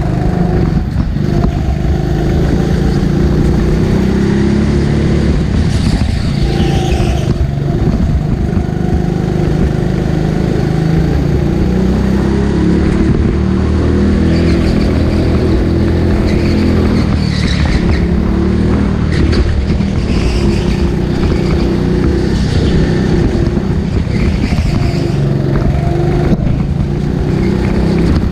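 Go-kart engine running hard on track, its pitch rising and falling repeatedly as the throttle comes on and off.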